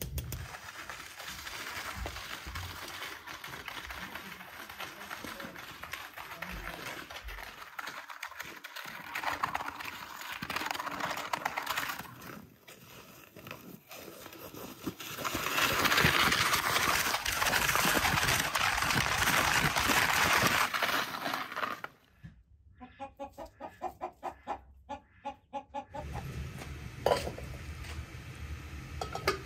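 Chickens clucking, with a quick run of short repeated calls about two-thirds of the way through. In the middle comes a louder hiss lasting several seconds, as a wooden sled slides over icy snow.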